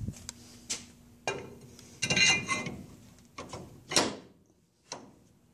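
Cast iron brake rotor being slid over the axle's wheel studs by hand: scattered clicks and scrapes, a short ringing metal clatter about two seconds in, and a sharp knock near four seconds.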